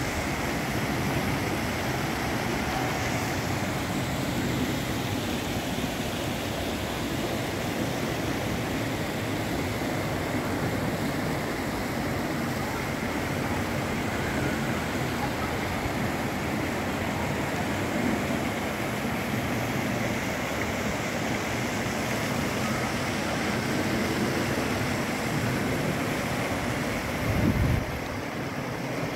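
Steady rushing noise of fountains splashing in a lake, with a short low thump near the end.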